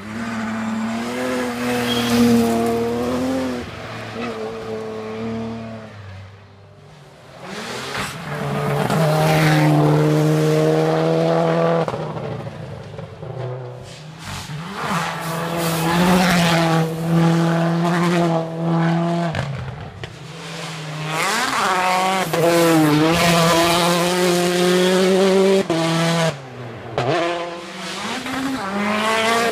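Rally cars at full speed on a special stage, engines revving hard, the pitch climbing and dropping again and again through gear changes and braking as the cars go by one after another.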